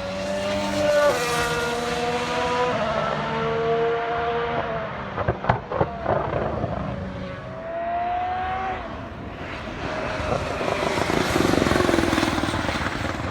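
Honda-powered 2020 Formula 1 car's 1.6-litre turbo V6 running hard: the engine note falls in steps as it downshifts, then a quick cluster of sharp pops and crackles from the exhaust about five to six seconds in, before the revs rise again. Engine noise grows louder again near the end.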